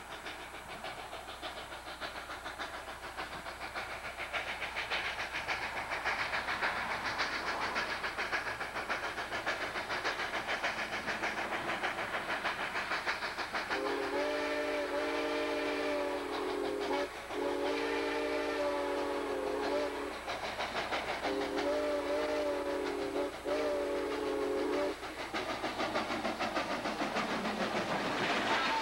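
Southern Pacific 786, a 2-8-2 Mikado steam locomotive, approaching with its exhaust chuffing, growing steadily louder. From about halfway through, its chime whistle sounds a series of long blasts for about eleven seconds. Near the end it passes close by with a rush of steam hiss.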